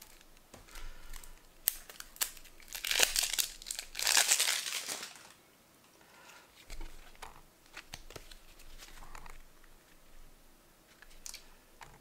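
The wrapper of a sealed card deck crinkling and tearing as it is opened, loudest from about three to five seconds in, then fainter rustling as the cards are handled.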